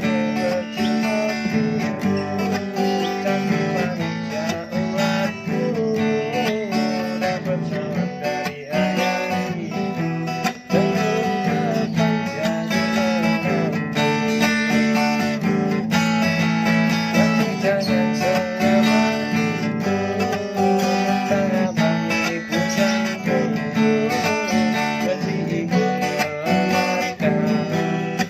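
Music: an acoustic guitar strummed steadily, with a wavering melody line over it.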